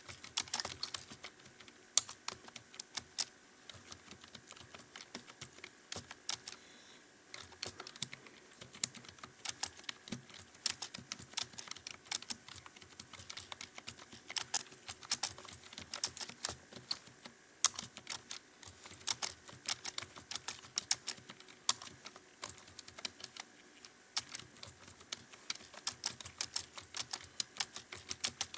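Fast, continuous typing on a computer keyboard: a rapid stream of key clicks, several a second, with a brief lull about seven seconds in.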